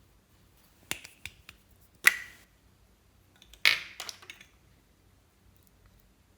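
Slime being handled, giving a few sharp clicks and two short, loud crackling pops, the second followed by a few more clicks.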